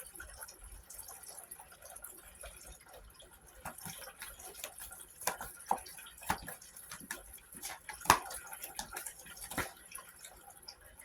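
Tarot cards being handled and laid down: irregular light clicks and taps, a few sharper ones in the second half, over faint hiss.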